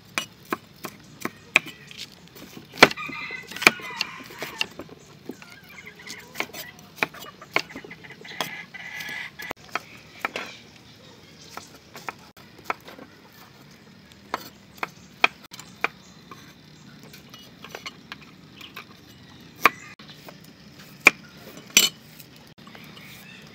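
Cleaver chopping green bell pepper on a wooden chopping block: irregular, sharp knocks of the blade hitting the wood, some much louder than others.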